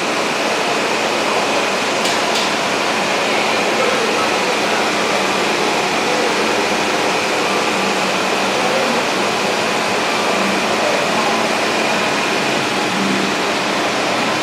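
Steady ventilation noise: an even rushing hiss with a faint high whine running through it.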